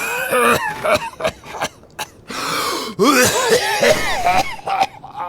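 An old man's loud coughing fit in two bouts about three seconds apart, with rough, strained catches of the voice between them.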